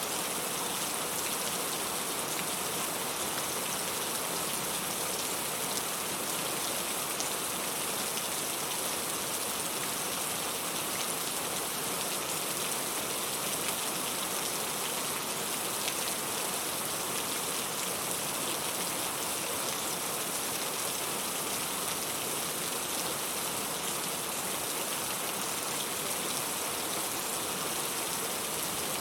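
Steady, heavy rain falling: an even, unbroken hiss with fine drop ticks throughout.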